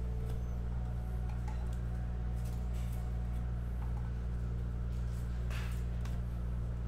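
A steady low hum, with soft, faint flicks and slides of trading cards being laid one at a time onto a cloth mat.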